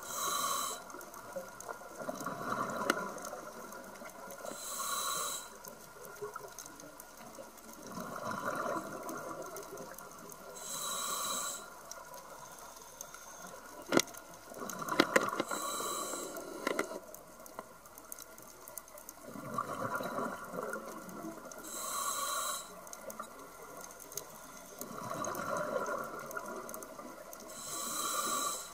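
Scuba diver's regulator breathing underwater: a short hiss on each inhale, then a longer gurgle of exhaled bubbles, repeating about every five to six seconds. A few sharp clicks come a little past halfway.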